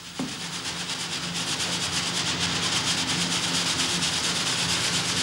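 Snow being shaken through a wooden-rimmed sieve onto a metal sample cylinder: a rapid, even rasping of snow grains against the mesh, growing louder about a second in.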